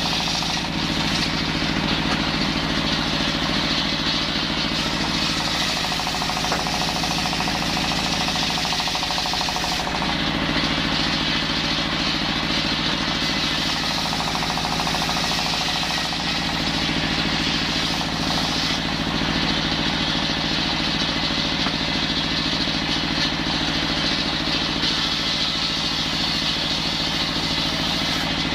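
Petrol-engined circular saw running steadily while sawing timber into rafter stock, its engine drone and blade noise continuous; the high hiss of the cut eases about a third of the way in and comes back past the middle.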